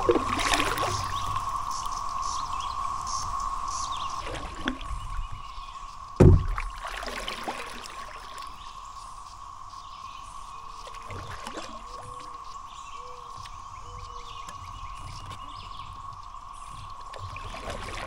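Kayak paddle strokes, with water splashing and trickling off the blades every few seconds, over a steady, even drone of cicadas chorusing. One thump about six seconds in is the loudest sound.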